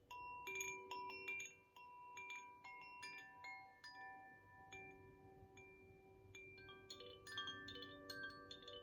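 Koshi chime (Ignis tuning) being played: its clapper strikes the tuned metal rods in irregular clusters, and the tones overlap and ring on. There is a flurry of strikes at the start, sparser ones in the middle and another flurry near the end.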